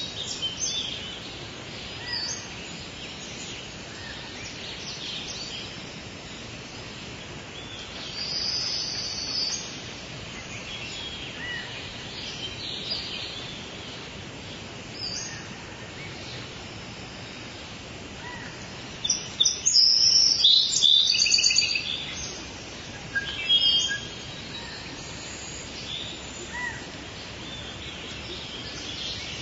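Small birds chirping and calling, with a louder, denser run of rapid chirps about two-thirds of the way through.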